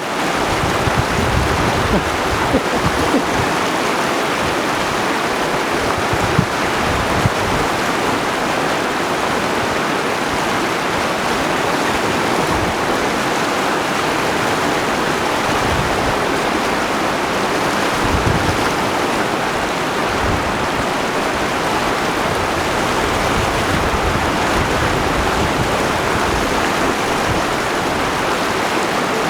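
Mountain river rushing steadily: a dense, even wash of flowing water that holds the same level throughout.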